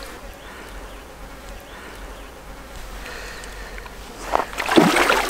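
A flying insect, a fly or bee, buzzing faintly and steadily close by. Near the end there is a brief, much louder sound.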